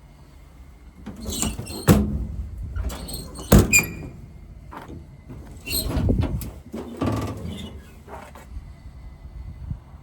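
Sharp metallic knocks about two and three and a half seconds in, with rattling and scraping around them and again a little past the middle, like doors or latches being handled.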